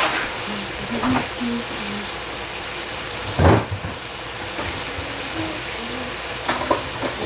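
Vegetables and tofu sizzling in a stainless steel pot over a gas flame: a steady hiss with scattered crackling pops, the loudest about three and a half seconds in.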